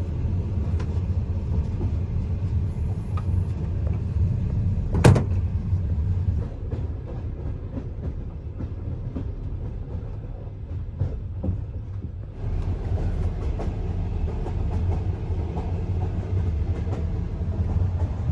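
Soviet-built sleeper carriage rumbling steadily along the rails, with one sharp knock about five seconds in. The rumble eases for a while, then picks up again a little past the middle.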